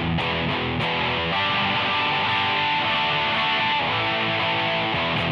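Electric guitar, a Gibson Les Paul, played through a Simplifier MK2 amp-and-cab simulator set to its Vox-style AC Brit voicing: strummed chords ringing out steadily, with a change of chord about a second and a half in.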